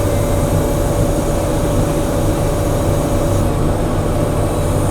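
JCB 3CX backhoe loader's diesel engine running at high revs, with a steady hydraulic whine as the dipper arm is worked. The whine stops near the end.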